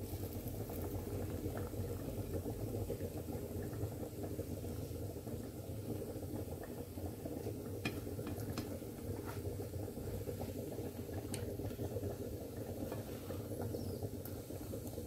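Oiled roti (Mauritian farata) frying in a hot non-stick pan: a steady low sizzle, with a few light clicks as a spatula presses down on the bread.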